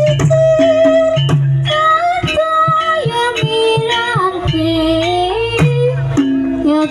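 Javanese gamelan music for an ebeg dance: a singer holds long, wavering melody notes over struck metal keys and drum strokes.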